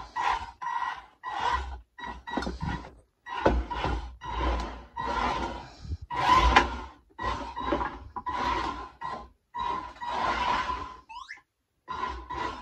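Combat robot's electric drive motors, run by a dual-motor ESC, starting and stopping in short bursts as the robot drives on carpet, with a steady high whine in every burst. Near the end there is a short rising whine.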